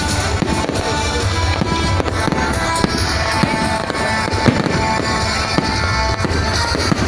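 Fireworks display: a steady string of bangs and crackles from bursting aerial shells, the loudest bang about four and a half seconds in, with music playing throughout.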